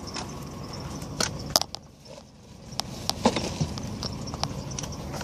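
Scattered clicks, knocks and light clatter of household objects being picked up and handled, about ten in all, over a steady low rumble.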